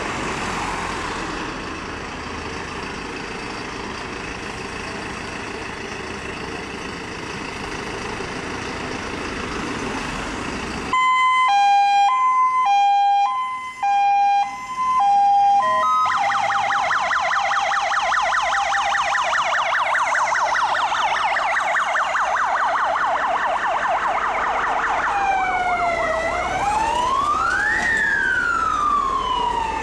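Fire trucks' diesel engines running as they pull out. About eleven seconds in, an electronic fire-engine siren starts with a two-tone hi-lo alternation, then switches to a fast yelp. Near the end it gives way to slow rising and falling wails, with two sirens overlapping.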